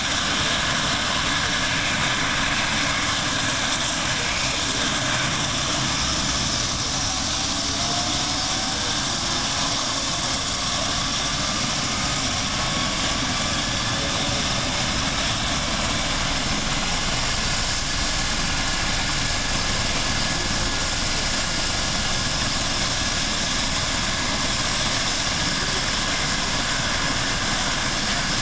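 Eurocopter EC135 air-ambulance helicopter running on the ground before takeoff, its turboshaft engines and rotor making a steady, even sound.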